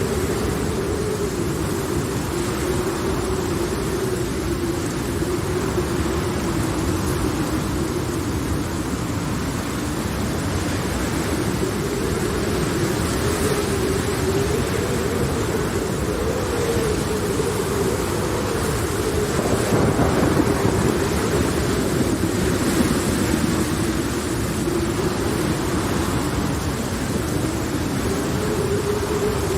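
Steady rain of a thunderstorm, with a low moaning tone that wavers up and down and a swell of thunder rumble about twenty seconds in.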